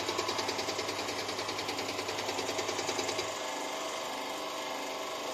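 CAT C7/C9 HEUI injector firing on a Nantai NTS815A injector test bench: a rapid, even ticking about six times a second over a steady low hum. Both the ticking and the low hum stop about three seconds in as the test step ends, and a quieter steady machine hum carries on.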